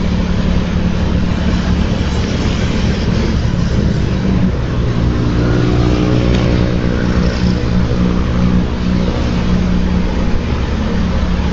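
Motorcycle engine running steadily while riding, with wind and road noise rushing over the helmet microphone. Around the middle a higher engine note joins in for a few seconds.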